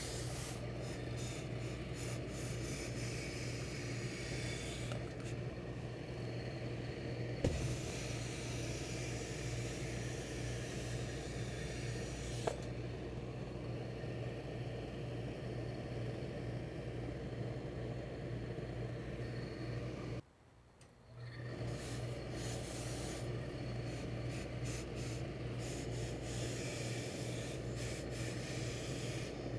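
Steady electric hum with a hissing wash from a tailor's hose-fed steam iron and its pressing equipment while a suit sleeve is pressed. The sound cuts out for about a second roughly twenty seconds in, then comes back.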